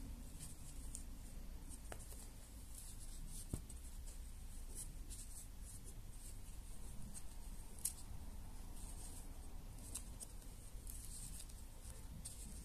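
Faint intermittent scratching and rustling of a crochet hook and yarn being worked through the stitch holes of a felt slipper sole, with a couple of sharper soft ticks.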